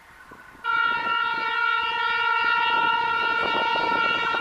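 Diesel locomotive's air horn sounding one long, steady blast at a single pitch. It starts about a second in and cuts off near the end.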